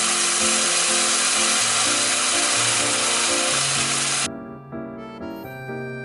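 A loud, steady hissing noise from kitchen food preparation that cuts off abruptly about four seconds in, over background music.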